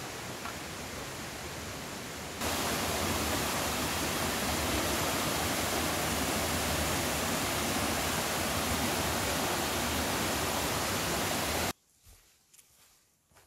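Steady rushing noise of flowing water. It jumps louder a couple of seconds in and cuts off abruptly near the end, leaving a much quieter background with a few faint ticks.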